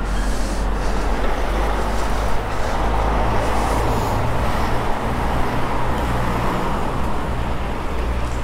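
Steady rolling noise of a small vehicle riding along a paved sidewalk: a constant low hum under a dense hiss, with no distinct events.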